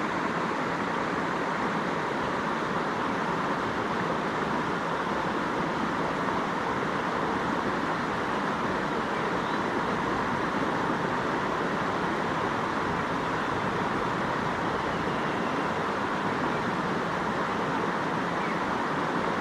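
River flowing: a steady, unbroken rush of water.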